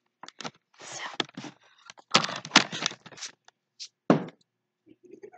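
Handling noise from a laptop and its webcam being picked up and moved close to the built-in microphone: a run of knocks, taps and scrapes, thickest in the middle, ending with a single heavier thump a little after four seconds.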